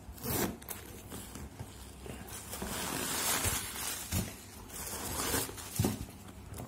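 Metal zipper on a leather handbag's inner compartment being slid open, with rasping and handling rustles of the bag and its tissue-paper stuffing, and a few light knocks.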